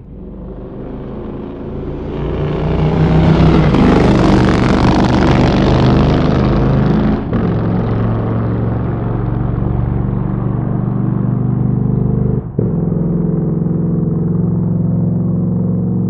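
Motorcycle engine running under throttle, growing louder over the first few seconds and then holding steady, with two brief cuts in the sound about seven and twelve and a half seconds in.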